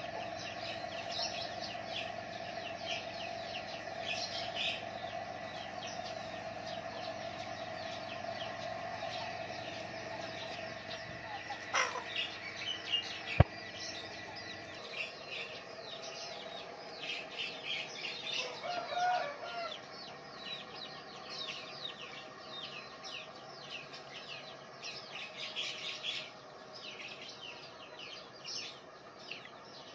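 Small birds chirping busily outdoors throughout, with a chicken clucking briefly past the middle. A steady hum in the first half stops about halfway, and there is one sharp click about 13 seconds in.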